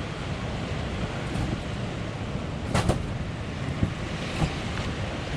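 Steady wind buffeting the microphone, a low rumbling rush, with a sharp click a little under three seconds in and a couple of fainter clicks after it.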